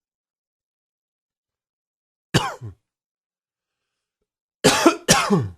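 A man's smoker's cough: a single cough about two seconds in, then two coughs in quick succession near the end, each dropping in pitch as it trails off.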